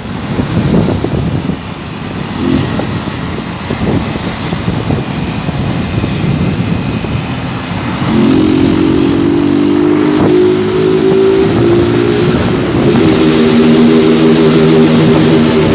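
Honda CG Start motorcycle's single-cylinder engine, run without its air filter, pulling through a tunnel. A rough rumble at first, then about eight seconds in the engine note comes up strong and climbs slightly, drops briefly a few seconds later, and comes back louder and steady.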